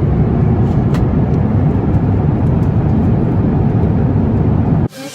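Steady, loud rumble of an Airbus A350-1000 airliner's jet engines and airflow heard from inside the cabin. It cuts off suddenly near the end.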